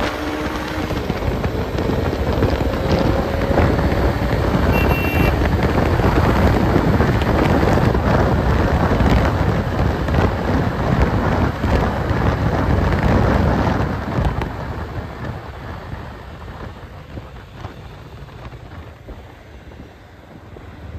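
Wind rushing over the microphone on a moving Bajaj Dominar 250 motorcycle, with its single-cylinder engine note climbing in the first few seconds. The rush eases off about two-thirds of the way through.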